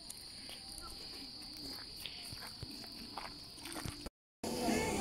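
Night insects such as crickets chirring in a steady high-pitched drone, with a few faint clicks and footsteps. About four seconds in the sound cuts out briefly and background music begins.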